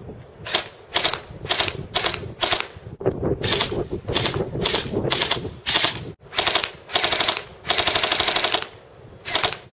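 SRC M16 airsoft electric gun firing on full auto in a string of short bursts, each a rapid rattle of shots. One longer burst comes near the end.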